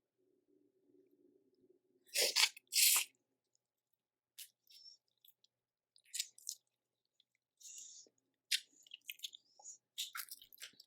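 Close-miked eating of boiled seafood: two loud, short noisy bursts about two seconds in, then scattered crunches, clicks and chewing.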